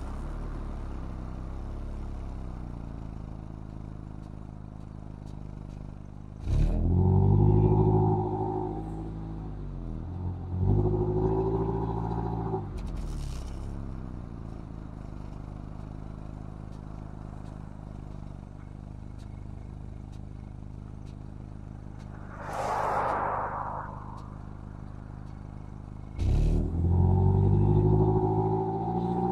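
Mazda MX-5's inline-four through its stock exhaust, running at low revs, then accelerating hard three times, about six, ten and twenty-six seconds in, its note rising with each pull. A short rushing noise comes about twenty-three seconds in.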